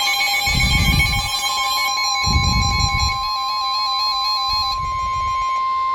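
Emergency alert tone: a steady single-pitched beep held throughout, layered with warbling tones that step up and down until near the end, with three deep booms about two seconds apart.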